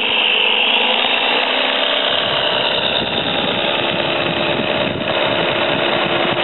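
Electric motor and propeller of a small foam radio-control Cessna trainer running with a steady high whine as the plane rolls along asphalt without lifting off.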